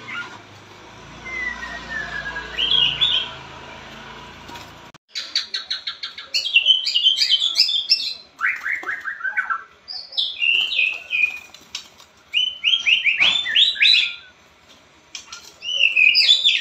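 Pied 'blorok' white-rumped shama (murai batu) singing. A few faint notes over a background hiss give way, about five seconds in, to loud, rapid song phrases in bursts with short pauses: clicking rattles, descending trills and high whistled notes.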